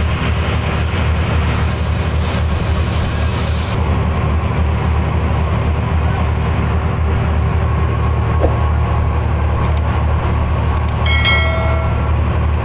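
Fishing boat's engine running steadily, a loud low drone with an even hum. A brief high-pitched tone sounds about eleven seconds in.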